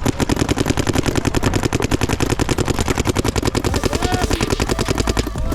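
Electronic paintball marker, the Planet Eclipse Gtek 180R, firing a long rapid string of shots at about a dozen a second, each a sharp pop.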